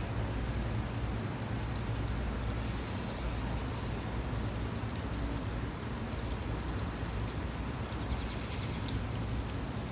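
Steady storm noise: rain falling, with a constant low rumble of wind and a few faint ticks of drops.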